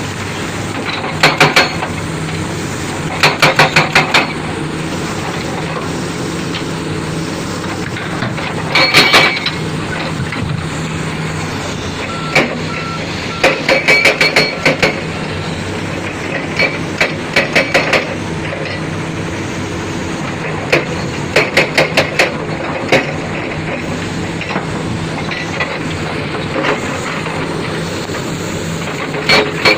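Heavy construction machinery running with a steady diesel engine hum. Every few seconds comes a burst of rapid, sharp metallic knocks lasting about a second. A faint series of beeps sounds briefly around the middle.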